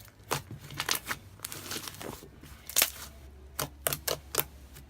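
Homemade clear slime being squeezed and kneaded by hand, giving an irregular series of sharp clicks and pops.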